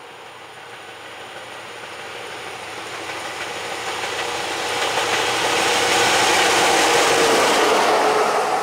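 A single locomotive running light approaches along the track and passes close by, its running noise growing steadily louder to a peak near the end. A steady hum in it drops slightly in pitch as the locomotive draws level, and the first knocks of its wheels over the rail joints come right at the end.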